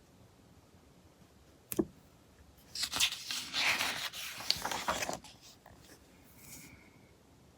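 Pages of a heavy-paper magazine being handled and turned: a sharp tap, then about two and a half seconds of paper rustling and sliding.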